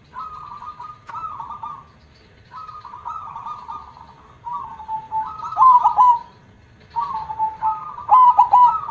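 Zebra dove (perkutut) cooing in four phrases, each a run of quick rolling notes that closes in louder, fuller coos; a big-voiced bird.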